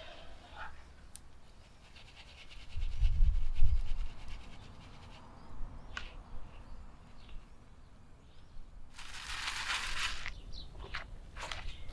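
Scattered scrapes and light knocks from cooking utensils and food being handled by the pot. A low rumble about three seconds in is the loudest sound, and a scraping rustle lasts about a second near the end.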